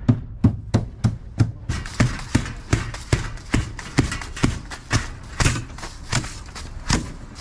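A quick, fairly even run of knocks and thuds, about two to three a second.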